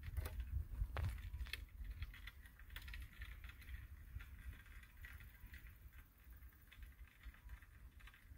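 Fishing reel being cranked to bring in line after the hook is set: faint, quick light clicking over low rumbling handling noise, with the sharpest clicks in the first couple of seconds.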